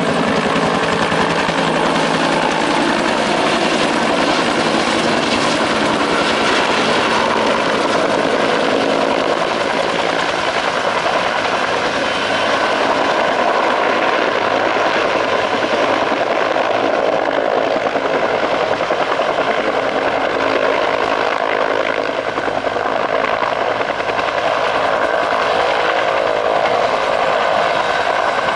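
Bell UH-1 Huey-type helicopter flying in low and settling to land: the steady whine of its turbine under the fast beat of its two-bladed main rotor.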